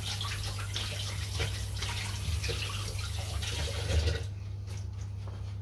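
Kitchen tap running while hands are washed under it, the water shut off about four seconds in.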